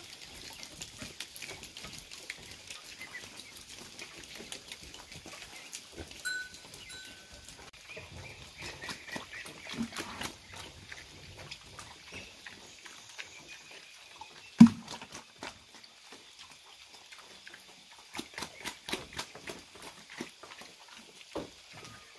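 A pig eating feed at a trough, with irregular wet smacking and chomping clicks, and one sharp loud knock about fifteen seconds in.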